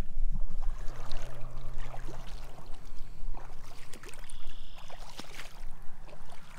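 Wind rumbling on the microphone over a low, steady engine drone: a distant agricultural seeding airplane. A few light clicks are scattered through it.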